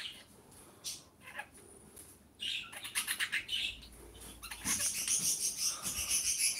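Budgerigars chirping: a few short chirps, then from about two and a half seconds in a fast, continuous chatter of high chirps that grows louder near the end.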